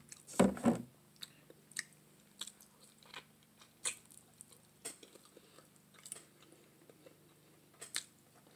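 Close-up mukbang eating sounds: a person biting and chewing meat off curried neck bones held in the fingers, with faint, scattered wet smacks and clicks of the mouth. A brief, louder sound comes about half a second in.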